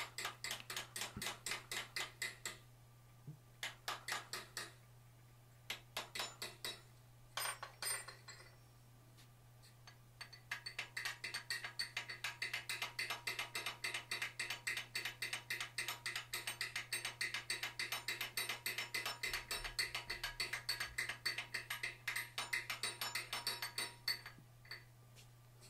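Rapid light hammer blows, about five a second, on a hand-held eye tool and fuller set against a forged steel bear's head clamped in a vise. Several short runs of taps come in the first eight seconds, then one long steady run from about ten seconds in until just before the end.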